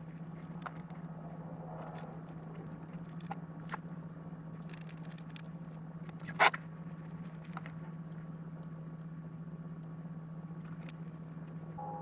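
Faint scattered clicks and scrapes of hands working at an oil pan drain plug and a plastic drain pan, over a steady low hum. One sharper knock comes about six and a half seconds in.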